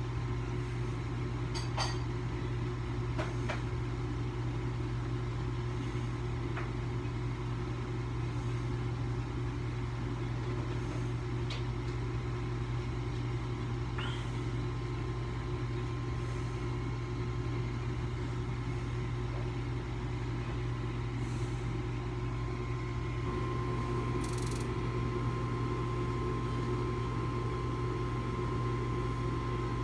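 An oversized 4-ton gas furnace running with a steady low hum, a thin high whine joining about three-quarters of the way through. This is one short run of a furnace that is short-cycling, running briefly and then shutting off completely.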